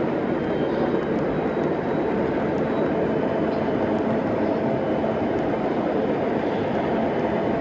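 Three-rail O gauge model trains running on the layout, giving a steady rumble of wheels on track.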